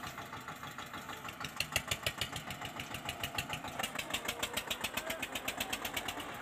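Small motor of a toy tractor running with a rapid, even ticking of about ten beats a second as it pulls a loaded trolley through muddy water.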